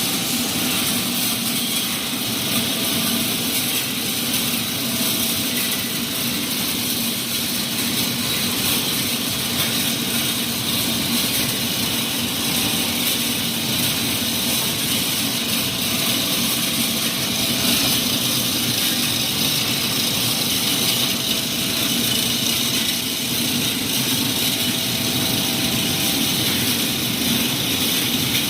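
Wire production machinery running steadily: a constant mechanical hum under a strong, even hiss.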